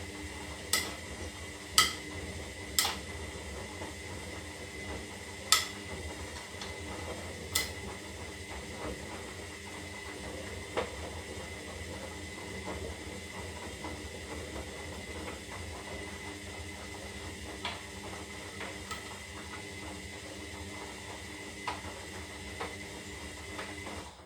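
Zanussi Lindo 300 washing machine running a 60-degree synthetic wash: a steady motor hum with a faint hiss, broken by sharp clicks, several in the first eight seconds and a few fainter ones later.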